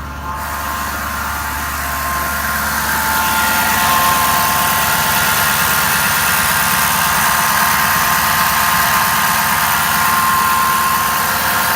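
Ford 6.7 Powerstroke V8 turbo-diesel running steadily with a high-pitched whine over the engine noise; the whine comes from a failing alternator. The sound grows louder over the first few seconds, then holds steady.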